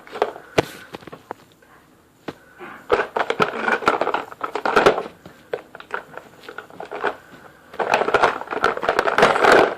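Close rustling and crinkling with many sharp clicks and taps, in two longer stretches, of small plastic things being handled.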